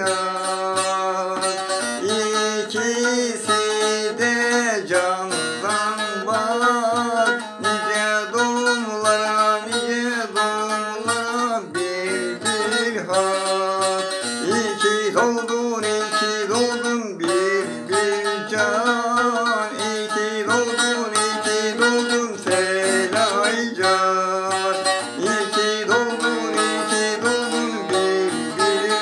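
A man singing a Turkish folk-style song with a wavering, ornamented voice while strumming and plucking a bağlama (long-necked saz) without a break.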